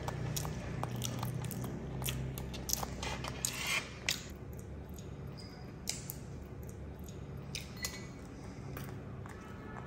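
Eating sounds: chewing with scattered small clicks and taps of a fork against a plate, over a low steady hum.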